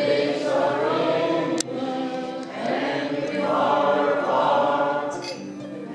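A standing crowd singing a song together, led by a woman on a microphone with electric guitar accompaniment.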